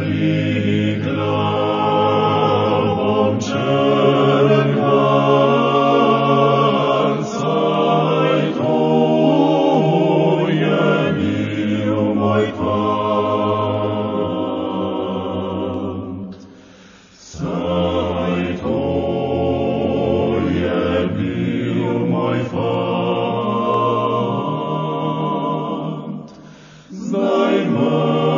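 Music of chanted choral singing over a low held note, the sung phrases pausing briefly twice, about halfway through and near the end.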